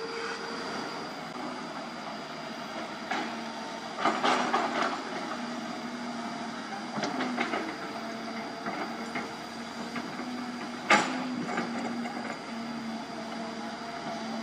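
Hyundai 220 hydraulic excavator's diesel engine running steadily, with scattered metallic clanks and rattles from the machine at work, including one sharp, loud knock late on.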